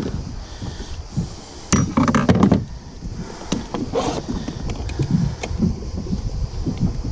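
Knocks and scuffs on a plastic fishing kayak's deck as a freshly caught grouper is handled on board, with a louder clatter about two seconds in and a few sharp clicks after it, over a steady low rumble.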